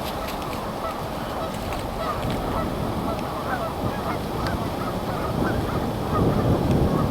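A flock of geese honking, many calls overlapping, as the birds leave and take to the air. Wind rumbles on the microphone underneath and grows stronger near the end.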